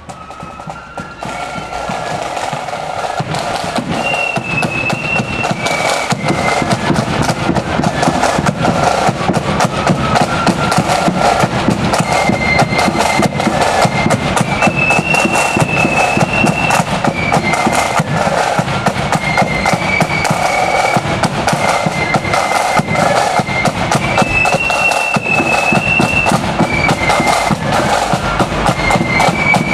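Marching flute band playing a tune: a high flute melody over snare-drum rolls and bass-drum beats. It grows louder over the first few seconds, then holds steady.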